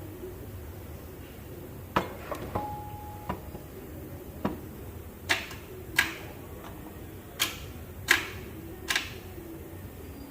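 Hand tools and metal parts being handled during engine and transmission work: a string of sharp, irregular metallic clanks and knocks, about nine in all, one of them ringing briefly. A steady low hum runs underneath.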